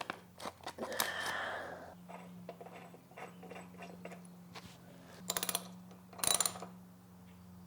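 Ratchet wrench clicking in short quick runs while fitting a spark plug into a small lawnmower engine, with scattered knocks and a brief scrape of tools about a second in.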